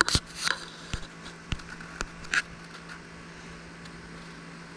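Several irregular knocks and rustles of a handheld camera being moved and reframed in the first couple of seconds, then only a faint steady hum.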